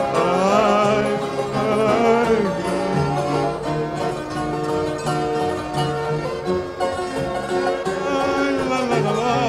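Instrumental break in a Portuguese folk-style song: the backing band plays, led by plucked strings, with a wavering melody line that slides up near the start and again near the end.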